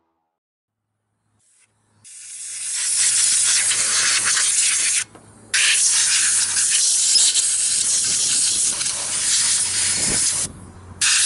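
A cleaning spray hissing in long spurts onto an aluminium motorcycle engine case cover. It starts about two seconds in and stops briefly twice before starting again.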